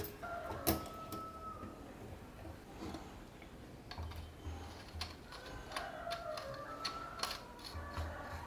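Small metal lamp parts clicking and tapping against each other at irregular intervals, some taps leaving a brief thin ring, as the pieces are handled and fitted.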